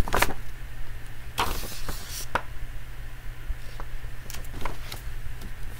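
Paper pages of a book being handled and turned: a few brief crinkles and ticks, with a longer rustle about a second and a half in, over a steady low hum.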